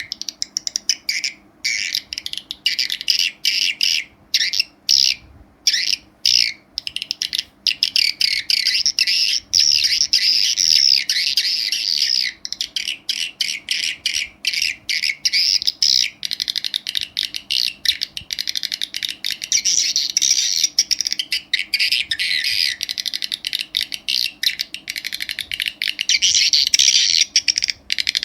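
Recorded swiftlet calls played back through an amplifier: a dense stream of rapid high chirps, broken by short gaps for the first several seconds and then almost continuous.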